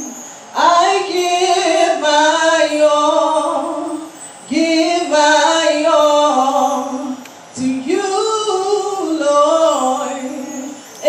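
A solo voice singing a slow gospel line in three long, held phrases, pausing briefly twice.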